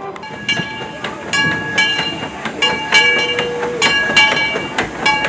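Disneyland Railroad train rolling, with repeated metallic clanks and ringing from the cars and track.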